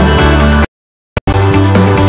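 Background music that cuts out abruptly for about half a second, then starts again.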